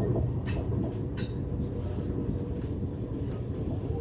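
NS ICNG electric train running with a steady low rumble, and two short sharp clicks about half a second and just over a second in.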